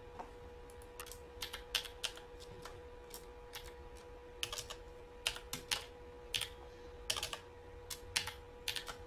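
Typing on a computer keyboard: irregular keystrokes, a few at a time with short pauses, over a faint steady hum.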